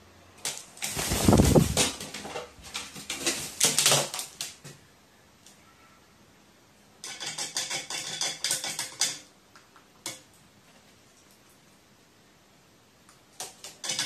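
A pet crow thrashing at a wild bird's feather on a sheet-metal-topped table: a loud scuffle of thumps and scrapes in the first few seconds, then quick runs of clattering taps on the metal from about seven to nine seconds in and again near the end.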